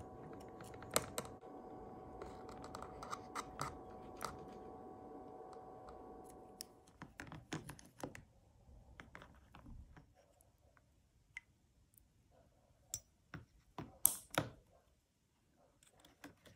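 Light clicks and taps of metal tweezers and the gold-plated watch case against plastic tubs as the case is rinsed in water, with a few sharper taps near the end. A faint steady machine hum runs underneath and stops about seven seconds in.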